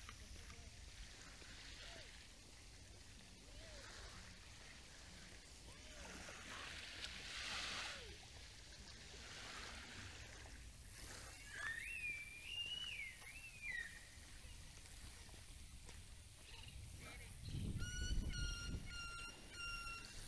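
Small waves washing gently onto a sandy beach, with a bird calling: a wavering whistle around the middle, and a short, repeated call a couple of seconds before the end.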